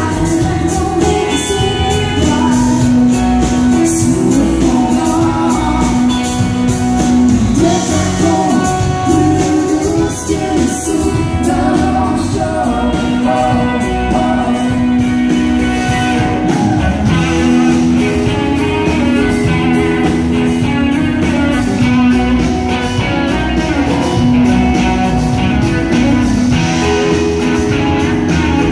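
Live band with a woman singing over strummed acoustic guitar, electric guitars and drums, amplified through the stage sound system.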